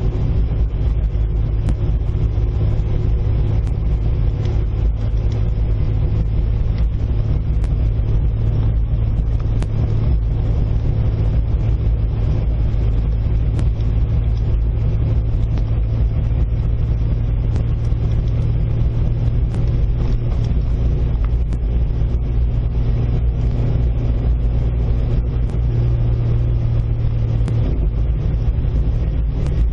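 1997 Jeep TJ Wrangler with its top off, driven slowly down a gravel road: a steady low engine and road drone, with scattered light ticks and clicks from gravel and rattles.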